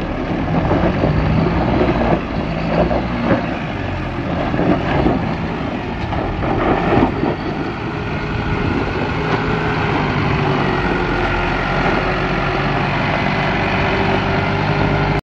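Isuzu NPS 75-155 4x4 truck's four-cylinder turbo-diesel engine pulling steadily uphill at low speed, with tyres crunching and knocking over rock and gravel through the first half. The sound cuts off suddenly near the end.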